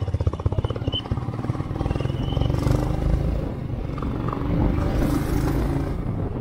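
Motorcycle engine running with a fast, even firing beat, heard from the rider's seat. The beat gives way to wind and road noise as the ride goes on.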